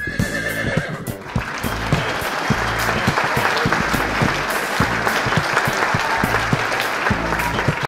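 Applause over background music with a steady beat; the clapping swells in about a second in.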